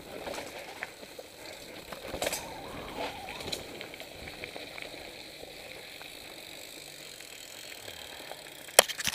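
Mountain bike rolling down a dirt forest trail: steady tyre and riding noise with scattered clicks from the bike, and two sharp knocks near the end.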